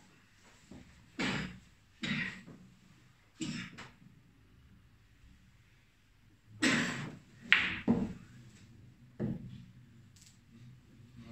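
Billiard balls on a boccette table, rolled by hand, knocking into each other and against the cushions: a spaced series of about eight sharp clacks and thuds, the loudest two close together past the middle.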